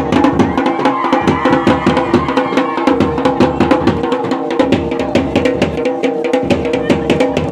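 Dhol and damau folk drums beaten together in a fast, driving rhythm of several strokes a second, with a steady held tone running underneath.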